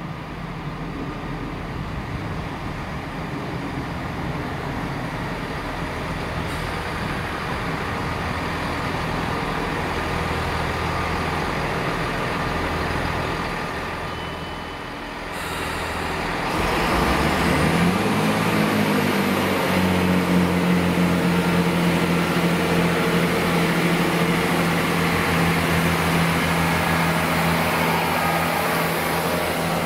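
Networker Turbo diesel multiple unit approaching and passing close by: a low rumble that grows slowly, then about two-thirds of the way through its diesel engines rise in pitch and settle into a steady, louder drone as the carriages go past.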